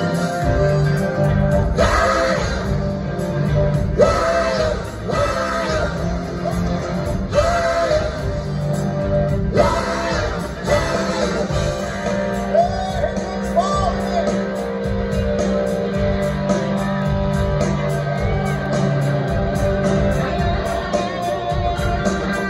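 Live rock band playing: a male lead singer belting over electric guitars, bass, drums and keyboard.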